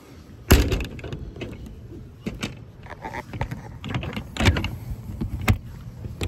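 Metal knocks, clicks and rattles from a service truck body's toolbox compartment doors and latches. The loudest is a sharp knock about half a second in, followed by several lighter clicks.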